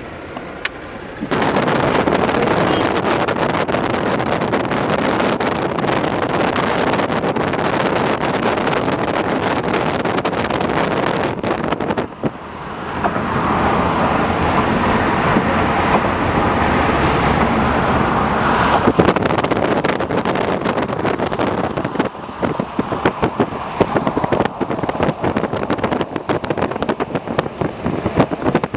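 Road and wind noise of a car travelling at motorway speed, heard from inside the car. It gets much louder about a second in, and in the last several seconds turns choppy, like wind buffeting the microphone.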